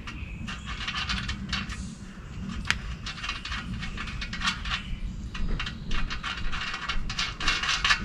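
Clicking and clinking of a socket wrench working the loosened axle nut on the Lectric e-bike's rear hub-motor wheel, in several short runs of rapid clicks.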